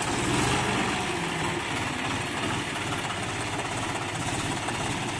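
John Deere 5036 D tractor's three-cylinder diesel engine running steadily while it works its front loader, a little louder in the first second.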